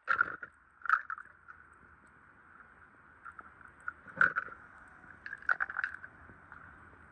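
A few short wet squelching and clicking sounds, the loudest near the start, about a second in and about four seconds in, over a faint steady high hum.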